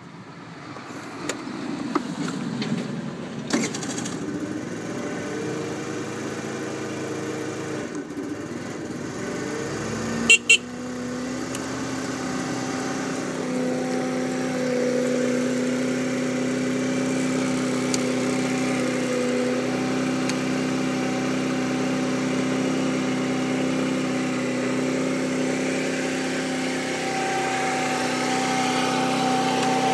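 A 49.5cc Propel Del Ray scooter engine running. Its note wavers for the first several seconds, then settles into a steady idle after two sharp clicks about ten seconds in.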